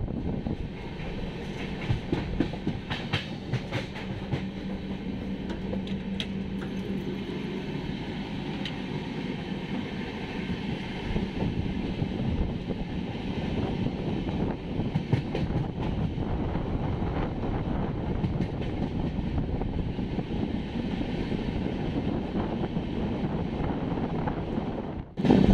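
A passenger train running on the track: a steady rumble of wheels on rail, with scattered clicks from the rail joints. A steady low hum sounds over the rumble for the first several seconds.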